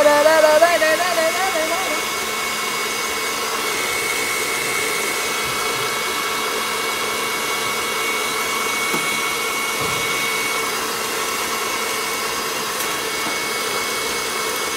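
KitchenAid stand mixer running at a steady speed, its beater turning through cake batter in a stainless steel bowl: an even motor whine with a thin high tone held throughout.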